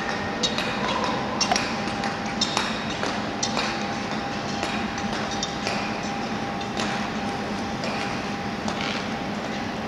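Steady hum and hiss of an indoor speed-skating hall, with scattered sharp clicks and knocks through it.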